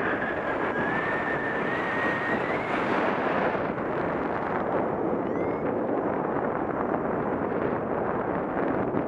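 Steady rush of wind across the camera microphone. A thin whistling tone rises slightly over the first few seconds, and a short chirp comes about five seconds in.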